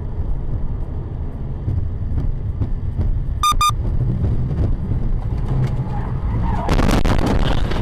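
Car driving on a wet road, with steady road rumble heard from inside the cabin and two short electronic beeps about three and a half seconds in. Near the end the car slides into the roadside guardrail: a loud crash and scrape lasting about two seconds.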